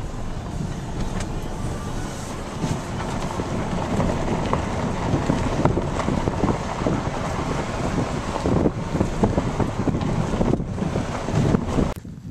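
A vehicle driving over a rough dirt track, heard from inside the cab: a steady rumble of engine and tyres with many small knocks and rattles from the bumps, and wind noise on the microphone. The sound cuts off suddenly near the end.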